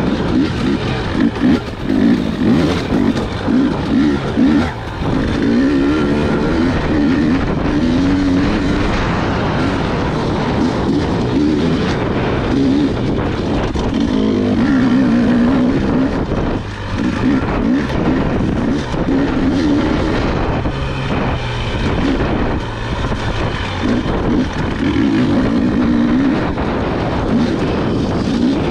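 Husqvarna dirt bike engine running under the rider, its pitch rising and falling over and over with the throttle as it is ridden along a rough trail.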